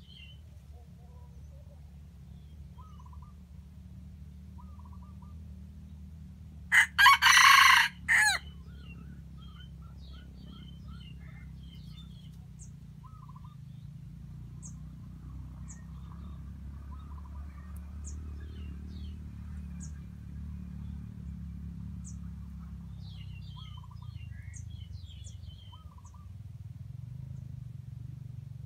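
Junglefowl rooster crowing once, a short loud crow of about a second and a half about seven seconds in. Faint short chirps and clucks come and go over a steady low rumble.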